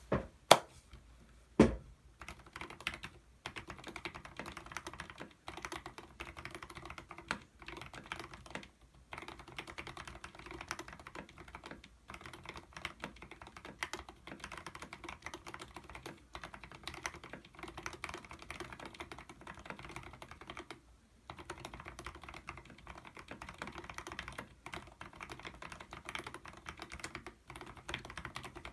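Fast, continuous typing on a mechanical keyboard with Zealios tactile switches, fully lubed (Krytox 105 on the springs, a 105/205 mix on the sliders), broken by a few brief pauses. Two louder knocks stand out in the first two seconds.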